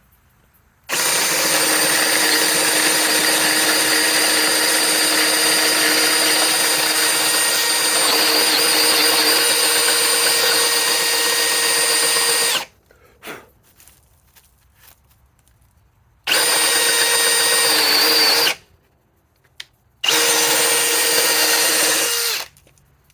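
Milwaukee M18 Fuel Gen 4 2904-20 cordless hammer drill running at speed 1, driving a nearly 2-inch bit through a hole. It runs steadily for about twelve seconds, stops, then gives two short bursts of about two seconds each.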